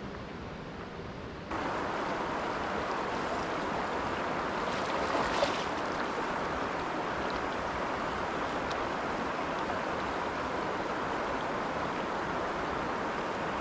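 Steady rush of a fast-flowing mountain creek, coming in abruptly about a second and a half in, with a brief tap about five seconds in.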